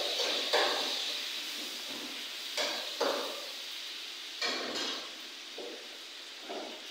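Metal utensil knocking and scraping in a wok, about six sharp knocks, over a steady hiss from the stove that fades toward the end.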